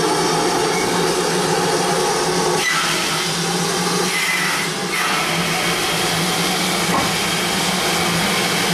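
Steady hiss of escaping steam from a Great Western Railway 56XX class tank locomotive moving slowly off.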